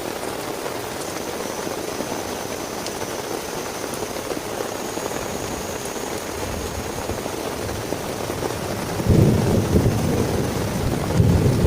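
Steady rain falling, with a deep rumble that swells in about nine seconds in and again near the end.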